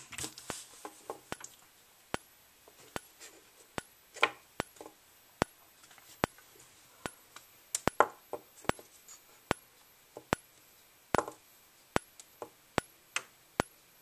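Wheelock E-70 xenon strobe flashing at a fast rate, each flash a sharp click about every 0.8 seconds, followed by a faint high whine that rises as the strobe recharges.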